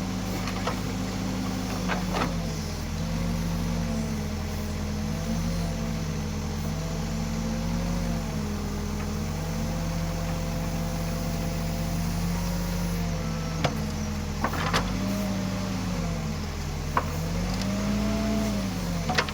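Escorts Digmax backhoe loader's diesel engine running under working load, its pitch sagging and recovering several times as the hydraulics dig and lift. A few sharp metallic clanks from the bucket and boom come through, most of them in the second half.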